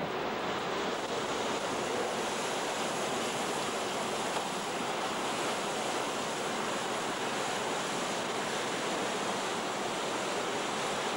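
Steady rush of churning sea water and wind, from the spray and wake of a small motor launch running fast close alongside a ship's hull.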